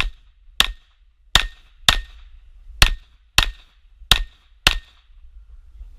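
Eight 9mm pistol shots from a Glock 34, fired as four quick pairs about half a second apart within each pair: double-taps on a series of targets in a practical-shooting stage.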